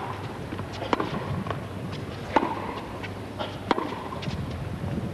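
Tennis rally: a ball struck back and forth with rackets, three sharp hits about a second and a half apart, with fainter clicks between them, over steady stadium background noise.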